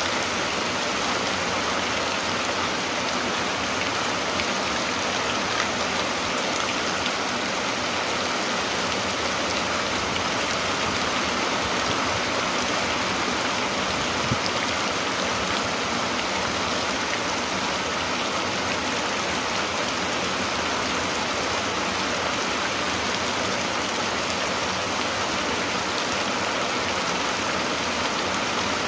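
Steady rain falling, an even, unbroken hiss of rainfall.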